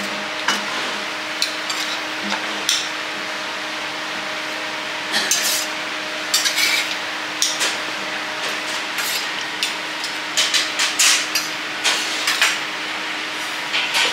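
Metal teppanyaki spatula and fork clinking and scraping on a steel griddle as cooked wagyu cubes are lifted onto a plate and the griddle is cleared. Sharp clicks come in bunches about a third of the way in and again in the last few seconds, over a steady low hum.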